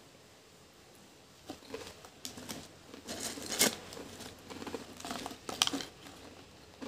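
Pringles potato chips being eaten and handled close to the microphone: irregular crisp crunching and crackling, loudest about three and a half and five and a half seconds in.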